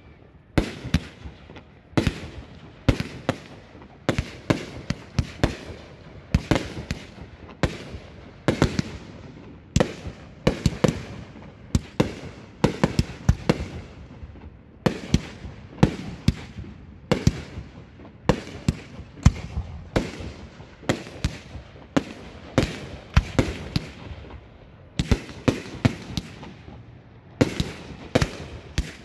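Aerial fireworks shells bursting in an unbroken barrage, sharp bangs about twice a second with a lingering hiss and echo between them.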